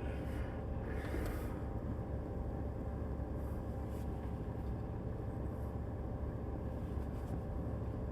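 Steady low rumble of an idling vehicle engine, with a faint even hum over it.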